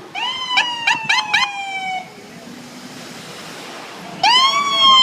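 Emergency vehicle siren sounding in two long wails, each rising quickly and then sliding slowly down in pitch, with a few short sharp blips over the first wail. The second wail starts about four seconds in and is louder.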